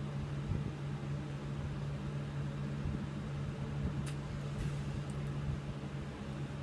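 Steady low machine hum of a running motor. A few faint crinkles of a snack wrapper being handled come about four to five seconds in.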